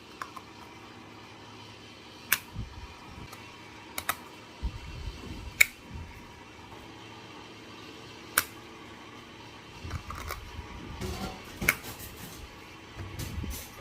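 Bottles and utensils handled during coffee-making: scattered sharp clicks and light knocks, about eight in all, with some rustling near the end.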